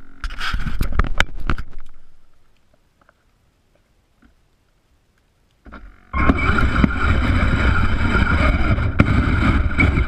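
A few knocks fade out, then about six seconds in the Blizzard SR radio-controlled tracked snowplow starts moving. Its electric motor and gearbox run with a steady whine as the blade pushes snow.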